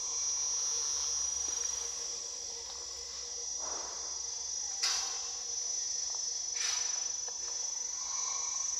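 Steady high-pitched drone of tropical forest insects, with three short noisy bursts around the middle.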